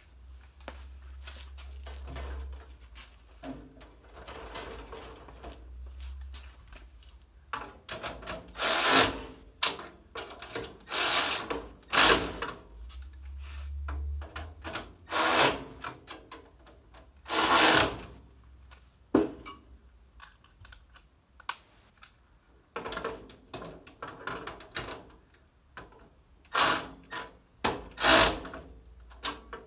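Cordless drill run in short bursts with metal clicks and clanks from a steel rolling tool cart being worked on, several loud bursts a second or more apart.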